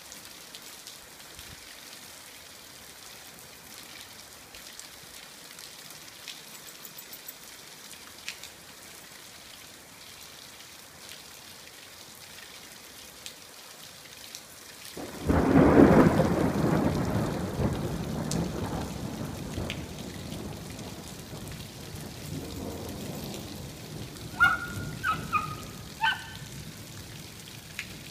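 Steady rain patter with water from a drain pipe splashing onto wet concrete. About halfway through, a loud clap of thunder breaks and rolls away over several seconds. Near the end come a few short high squeaks.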